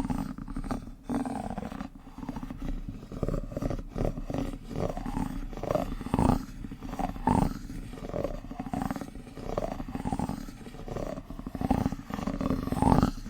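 ASMR spoon trigger with a plastic spoon worked close against the microphone: a steady run of irregular soft clicks and muffled rubbing swells.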